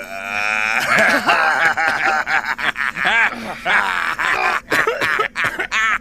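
Several men laughing loudly together at a joke, long bouts of laughter from overlapping voices.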